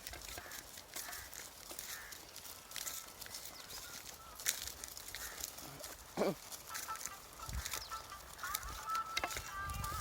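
Farmyard sounds: scattered clicks and knocks, with one animal call falling in pitch about six seconds in.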